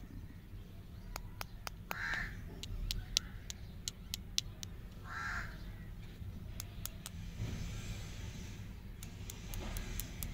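Sharp clicks and taps from lollipops on white sticks being picked up and handled, with two short harsh calls about three seconds apart over a steady low rumble.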